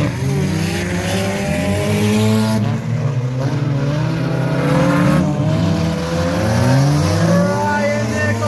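Engines of several bump-and-run race cars running together on a dirt track, revving up and down over one another.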